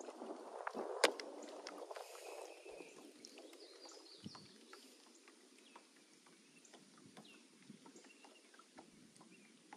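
Faint outdoor background with scattered light ticks and clicks, and one sharper click about a second in.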